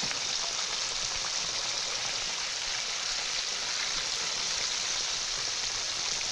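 Fish frying in hot grease: a steady, even sizzle.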